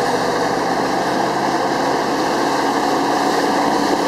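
Motorboat engine running steadily while the boat is under way, a continuous even drone with the rush of the hull through the water.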